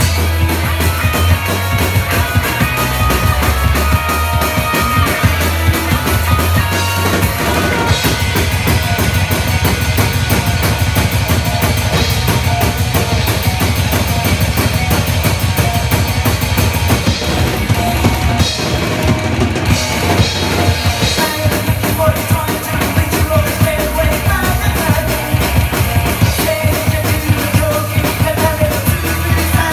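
TAMA drum kit played fast and hard in a rock beat, with bass drum, snare and cymbals, over loud rock music with a melody line.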